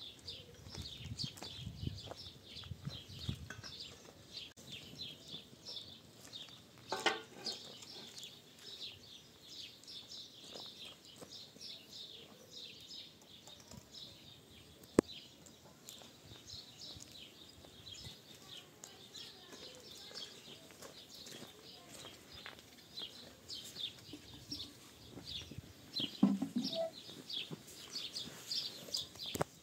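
Many small birds chirping continuously in quick, high, overlapping chirps. There are a few low knocks near the start and a single sharp click about halfway through.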